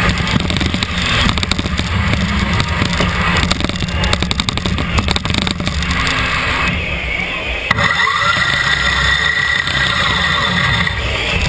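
Competition robot's electric drive motors and gearboxes running and rattling, heard from a camera mounted on the robot, with a steady higher whine joining about eight seconds in.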